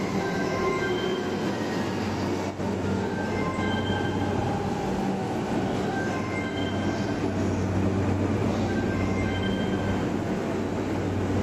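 Commuter train running at a station platform: a steady rumble with short, high-pitched wheel squeals that come and go.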